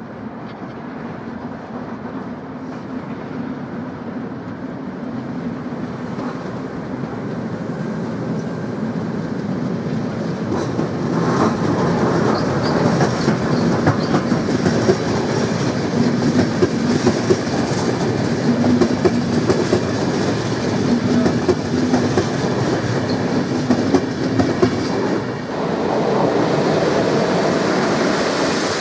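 Yellow RegioJet passenger train passing on the multi-track line: the rumble of wheels on rail grows louder as it comes near, with a steady clickety-clack over the rail joints. Near the end the sound changes abruptly to a second, closer train passing, louder and brighter.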